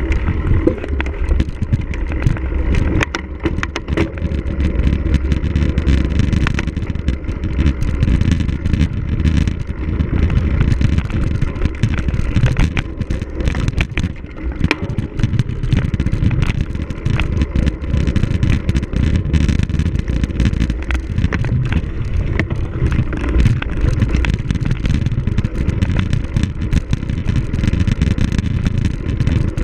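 Wind rumbling on the microphone of a camera mounted on a cyclocross bike being raced over rough ground, with frequent rattles and knocks as the bike jolts.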